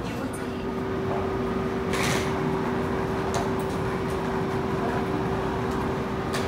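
Railway station platform ambience: a steady hum with background noise, a short hiss about two seconds in, and a click near the end.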